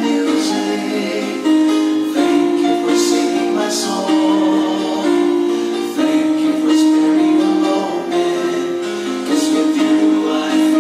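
A recorded song playing: a sung vocal melody with long held notes over instrumental backing.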